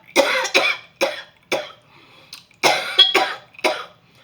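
A man coughing hard in a run of about seven harsh coughs in two fits, choking on food too spicy for him.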